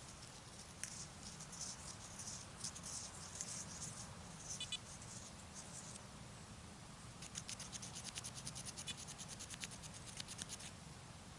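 Faint scratching and rubbing, with a quick run of dry ticks in the second half.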